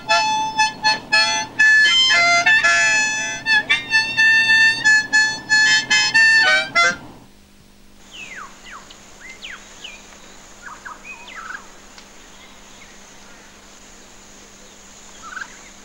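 Harmonica playing a tune in short, separate notes, stopping suddenly about seven seconds in. After it, scattered short falling bird chirps over a faint steady hiss.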